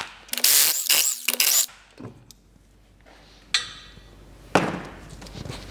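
Workshop tool and handling sounds during wheel removal: a loud hissing burst for about a second and a half at the start, then a few separate clicks and knocks.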